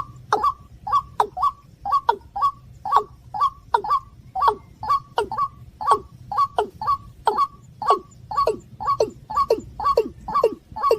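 Rapid, evenly repeated calls of the white-breasted waterhen and watercock, about three a second, each note falling in pitch, over a steady low hum.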